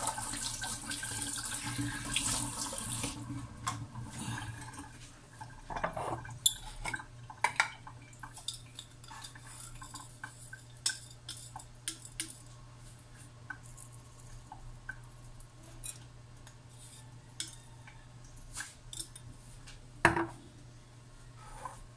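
Kitchen tap running into the sink for about three seconds, then shut off. Scattered clinks and knocks of dishes and utensils follow, with one louder knock near the end.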